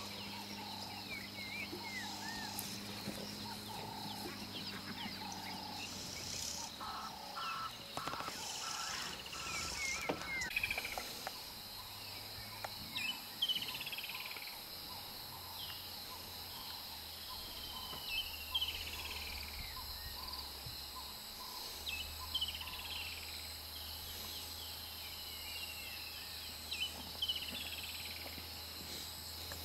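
Bush ambience: a steady high insect drone with many short, falling bird calls that come thick and fast from about the middle onward, over a low steady hum.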